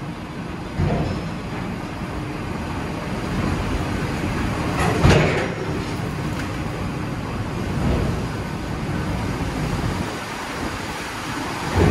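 Steady rumble of a trawler's machinery with heavy knocks about a second in, around five seconds (the loudest) and near eight seconds.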